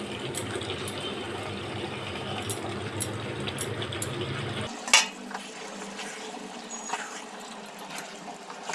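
Raw chicken pieces sizzling as they go into hot masala that has been fried until the oil separates, in a metal kadhai. A single sharp metal clink about five seconds in.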